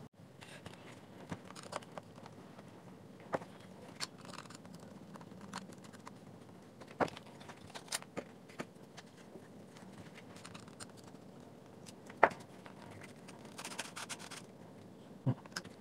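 Plastic parts of a projector's lens barrel handled on a desk: scattered clicks and knocks, the loudest about twelve seconds in, then a short stretch of scraping.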